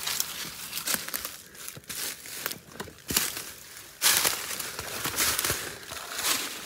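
Footsteps crunching through dry fallen leaves and sticks at a brisk walk, with many short crackles. The steps get louder from about four seconds in.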